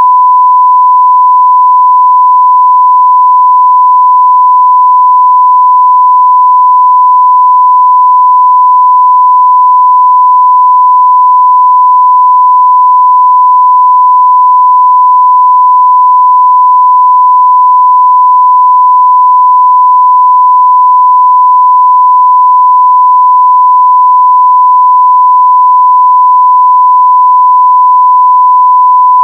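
Pure 1 kHz sine-wave test tone at full scale (0 dB), a single steady pitch held without a break.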